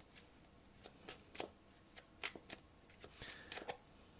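A tarot deck being shuffled by hand until cards jump out of it: faint, irregular card slaps and swishes, about three a second.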